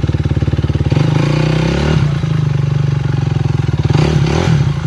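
Dirt bike engine running at low revs, revved up and back down twice, about a second in and again near the end.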